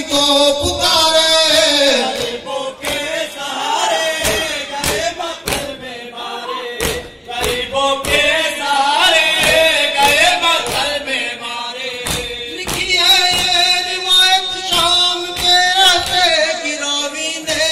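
Men's voices chanting a noha, a Shia mourning lament in Urdu, together as a group, over a steady beat of hands striking chests in matam.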